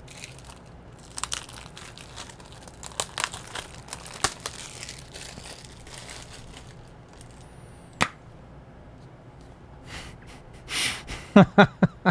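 Plastic packaging crinkling and crackling as disc cases are handled and unwrapped, with scattered clicks and one sharp snap about eight seconds in.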